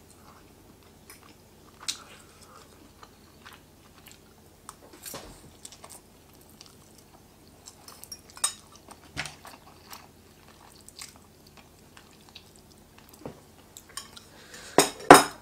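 A person chewing noodles, with scattered light clicks of a metal fork against a bowl and a few louder knocks near the end.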